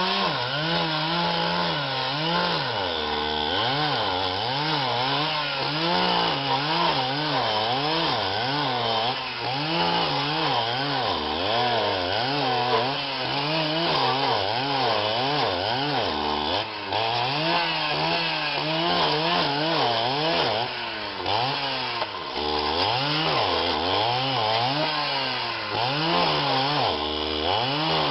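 Small petrol engine of a handheld STIHL KombiSystem power tool running under use, its speed rising and falling roughly once a second as throttle and load vary.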